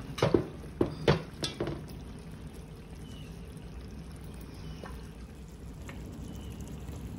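A wide metal pot of fish curry being turned on a gas burner grate: a few sharp knocks during the first second and a half, then a steady low simmering of the curry with a little boiling water just added.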